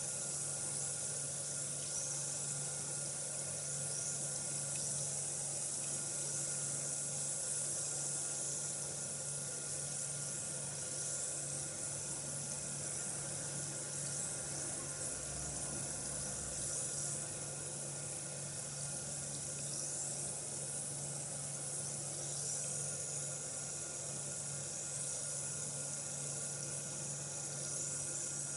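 Bath bomb fizzing in water: a steady high hiss of tiny bursting bubbles, over a low steady hum.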